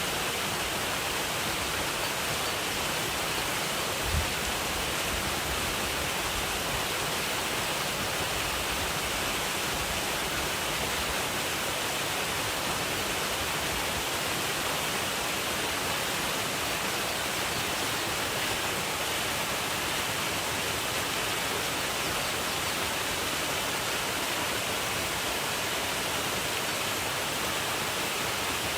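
Waterfall rushing in a steady, even roar of falling water. A brief low thump about four seconds in.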